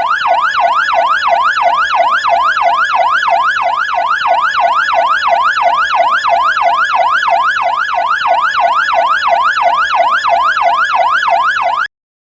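Fire truck siren in a fast yelp, its pitch sweeping up and down about three times a second, cutting off suddenly near the end.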